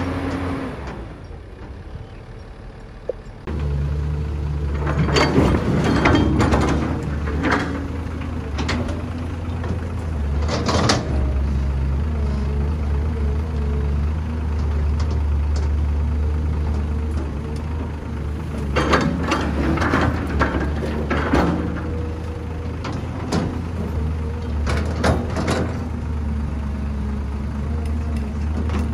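Diesel engine of a Caterpillar 320B excavator running steadily at working revs, with several bursts of rattling clatter as buckets of soil and rocks are dug and dropped into a steel dump truck bed. The engine sound comes in after a quieter stretch about three seconds in.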